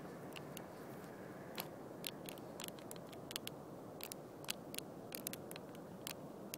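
Footsteps on dry, scrubby ground: faint, irregular crunches and clicks, over a steady low rush of wind and handling noise on the phone's microphone.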